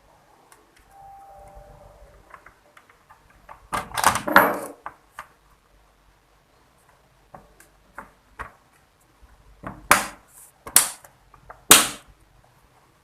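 Sharp plastic clicks and knocks as a laptop's bottom case is handled and closed up. There is a longer clatter about four seconds in, then three sharp snaps near the end.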